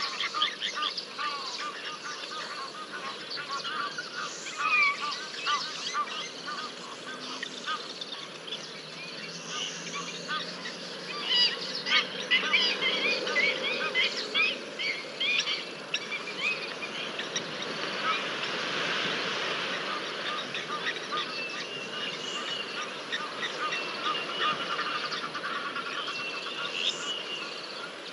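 African wild dogs (painted wolves) twittering and squeaking over a kill: many short, high, bird-like chirps, busiest around the middle.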